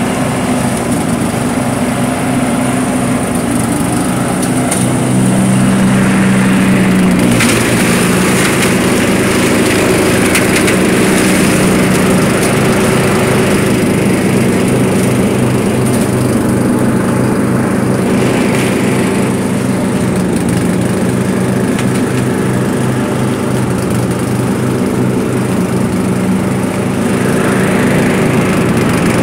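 Murray lawn mower's small engine running steadily under load while mowing and bagging leaves, with a light crackle of leaves and twigs going through the deck. The engine note rises a little about five seconds in and again near the end.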